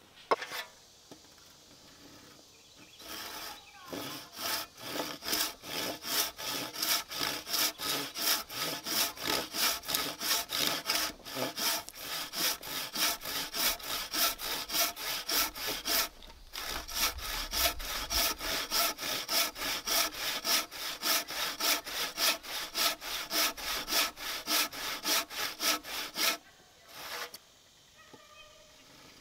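Hand saw cutting through wood in steady back-and-forth strokes, about three a second, with a short pause about halfway through. A single sharp knock comes just before the sawing starts.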